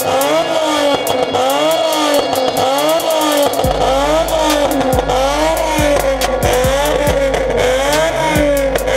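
Nissan 350Z's V6 exhaust being revved over and over in quick, even blips, the pitch rising and falling about one and a half times a second. A music track's deep bass beat comes in about four seconds in.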